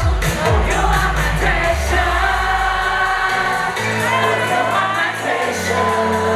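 Thai pop song performed by a boy group: male voices singing into microphones over a backing track with deep bass. Falling bass sweeps in the first couple of seconds give way to steady bass notes from about three and a half seconds in.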